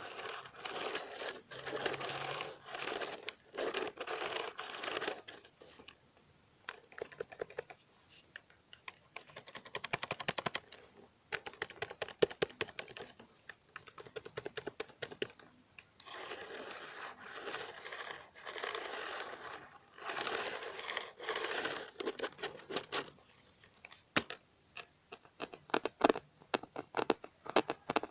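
Computer keyboard handled for ASMR: quick runs of key clicks and taps alternate with stretches of steady rubbing and scratching across the keys.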